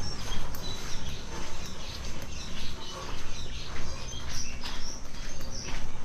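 Footsteps on a concrete alley path, with small birds chirping many times in short high notes in the background.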